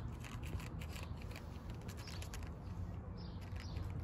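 Cats crunching dry kibble from bowls: a quick run of small crisp clicks that thins out after about three seconds, over a steady low rumble.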